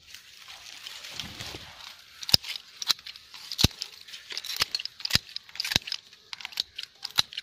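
Branches and foliage being cut back by hand: leaves rustling, then about ten sharp, irregular snaps and clicks of stems being cut or broken, starting about two seconds in.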